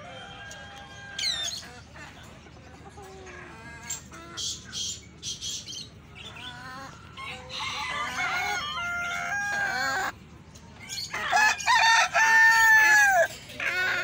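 Roosters crowing and chickens clucking in pens. Calls come on and off, and the loudest is a long crow about eleven seconds in that drops in pitch at its close.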